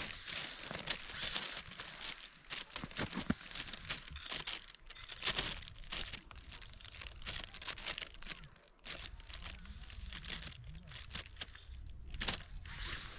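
Irregular crinkling and rustling noise with scattered crackles, strongest in the high range, with no steady rhythm.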